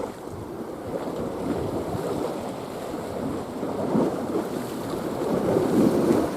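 Sea waves washing in, with wind buffeting the microphone; the rush swells louder about four seconds in and again near the end.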